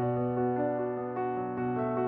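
Background piano music: a slow, gentle melody of held notes, with a new note struck about every half second.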